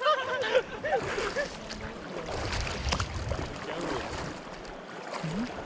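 River water rushing and splashing around a raft, with wind buffeting the microphone through the middle, and a few faint voices near the start.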